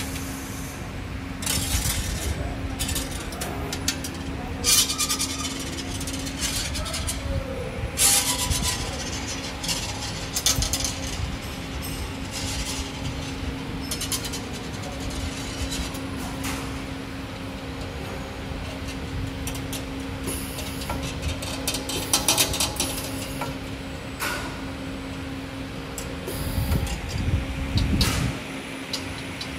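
ST35-12R CNC bending machine running a bending cycle: a steady hum with irregular sharp clicks and clacks from its forming tools and slides as they work the 4.5 mm part.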